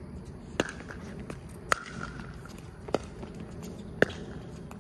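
Pickleball rally: paddles striking the hollow plastic ball, four sharp pocks about a second apart.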